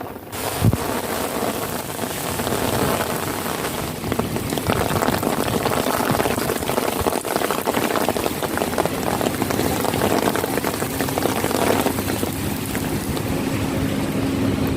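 Steady rain pattering on a hard outdoor surface, with a single thump about half a second in.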